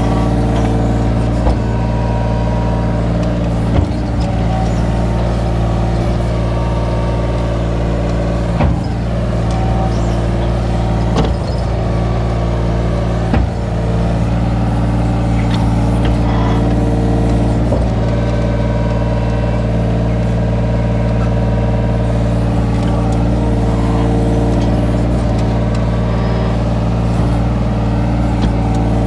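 Kobelco SK17SR mini excavator's diesel engine running steadily under hydraulic load while it digs, heard close from the operator's seat. A few sharp knocks stand out over it.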